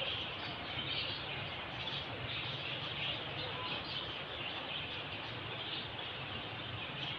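Faint chirps of distant birds over a steady background hiss of outdoor ambience.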